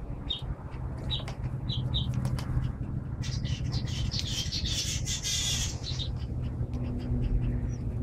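African grey parrot bathing in a bird bath, beating its wings in the water: a burst of splashing and wing flapping from about three seconds in to about six seconds, with scattered splashes around it.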